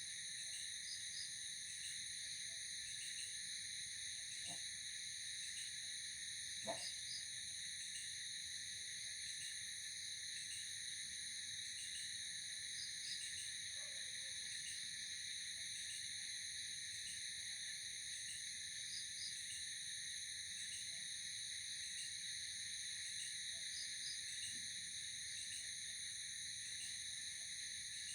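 Night insect chorus: a continuous high, even trill with small chirps repeating through it. A single soft click sounds about seven seconds in.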